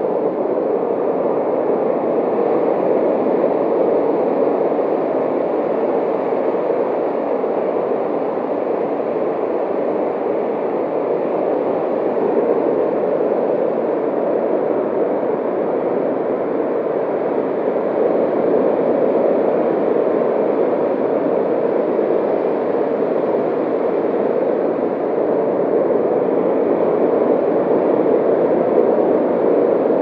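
The 'ocean' sound of a seashell held to the ear: a steady, muffled rushing hiss, which is surrounding noise resonating in the shell's hollow.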